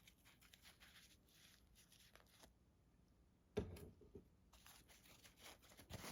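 Near silence with faint clicks and rustles of small folding-knife parts being handled, and one sharper tap about three and a half seconds in.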